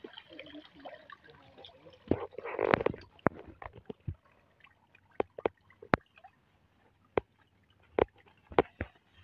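Hands groping in shallow muddy swamp water among grass: splashing and squelching, loudest about two to three seconds in, followed by a run of sharp, irregularly spaced clicks.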